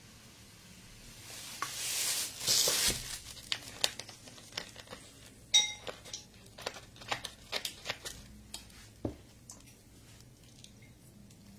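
Wrapping around tortillas crinkling for about two seconds, followed by a string of light clicks and knocks of a cup and tableware on the table, one of them a short ringing clink.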